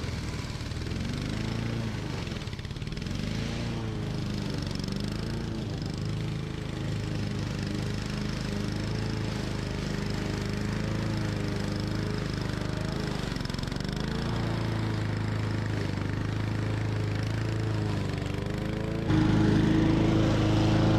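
Honda walk-behind lawn mower running in tall grass, its engine note repeatedly dipping and recovering as the blade takes on thick grass. About nineteen seconds in, the sound suddenly becomes louder and steadier.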